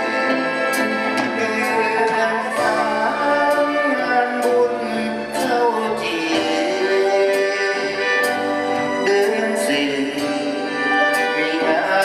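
A live big band orchestra playing a Thai song in Isan style, with a male singer's voice over it.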